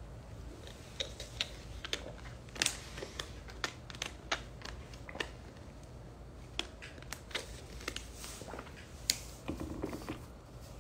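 Thin plastic Arrowhead water bottle crackling and clicking as it is squeezed and its screw cap is handled: a run of sharp, irregular crinkles, a few a second.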